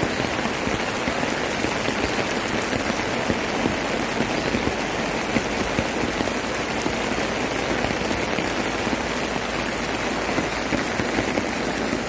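Steady rain falling: an even hiss dotted with many small hits of raindrops.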